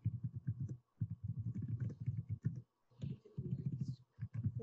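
Typing on a computer keyboard: fast runs of keystrokes, broken by short pauses.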